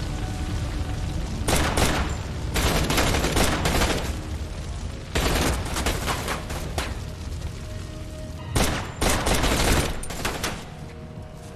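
Gunfire exchanged in a shootout: four bursts of rapid shots, each lasting one to two seconds, over a steady low rumble.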